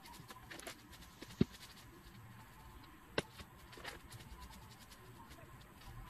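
Handling noise of glue-coated bones and a bristle brush on newspaper: scattered small clicks and rustles, with two sharp knocks, one about a second and a half in and one just after three seconds, as bone pieces are set down.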